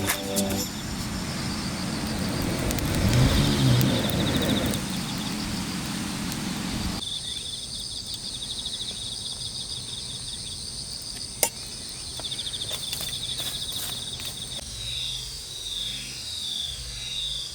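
Outdoor ambience of insects chirping in repeated high trills over a steady background hiss. The sound changes abruptly about seven seconds in, and there is a single sharp click later on.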